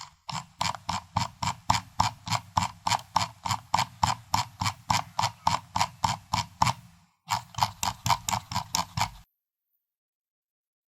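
Computer mouse scroll wheel being rolled, clicking through its notches at a steady rate of about five clicks a second. The clicking stops briefly about seven seconds in, resumes, and stops about two seconds later.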